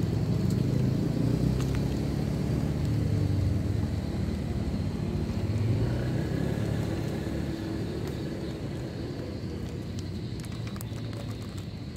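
Low, steady engine rumble of a motor vehicle, easing off slightly toward the end.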